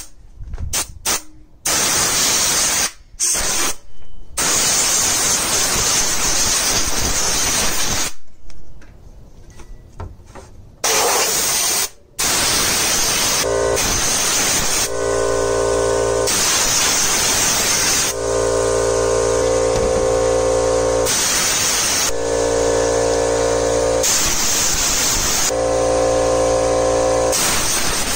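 Compressed-air blow gun blasting into a furnace draft inducer's blower housing to clean it: a few short bursts of hiss, then long blasts with short pauses. From about halfway a steady humming drone with a whine runs under the blasts.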